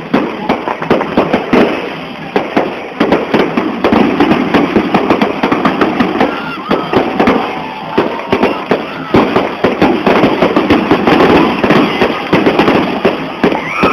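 Fireworks and firecrackers going off in a dense, irregular run of sharp bangs, several a second, over crowd voices.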